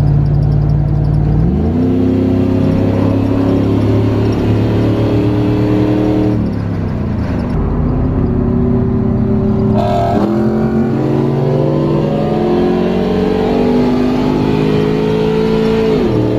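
A car engine accelerating hard twice: its pitch jumps up and climbs steadily for several seconds, then falls away, once about six seconds in and again near the end.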